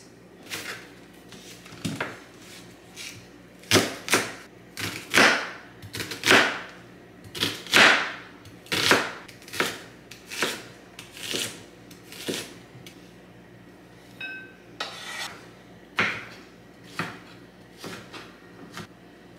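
Chef's knife chopping onion, then tomato, on a wooden cutting board: single sharp strokes of the blade hitting the board, roughly one a second, at an uneven pace.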